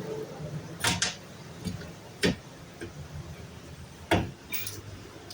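Irregular sharp knocks and clicks of hands and tools working a spring pad into its seat on a small car's rear coil-spring suspension; the loudest knocks come a little past two seconds and about four seconds in.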